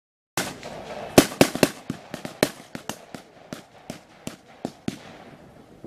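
Blank gunfire at a battle reenactment: irregular sharp shots, about fifteen in five seconds, starting suddenly just after the start.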